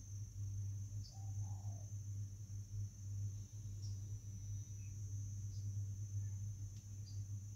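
A cricket trilling steadily on one high continuous note, over a steady low hum.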